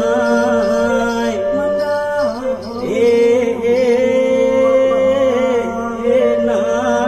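Music accompanying a Dayak Mandau dance, with long held notes that waver in pitch, changing every second or two.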